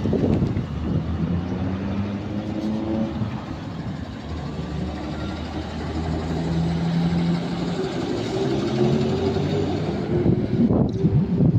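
ZiU-682 trolleybus pulling away from a stop and passing close by: the hum of its electric traction motor rising in pitch as it gathers speed, over tyre and road noise. Wind buffets the microphone near the end.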